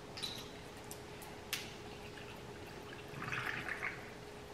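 Water poured from a plastic bottle into a tall glass of crushed ice: a short trickle about three seconds in, after a couple of faint clicks from handling the bottle.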